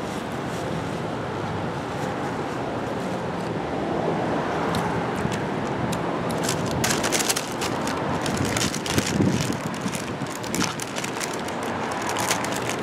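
Steady outdoor traffic noise with wind on the microphone, and scattered short crackles through the second half.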